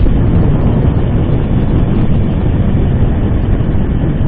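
Loud, steady wind noise buffeting a bike-mounted camera's microphone, mixed with road noise from a time-trial bike rolling at about 25 mph on a wet road.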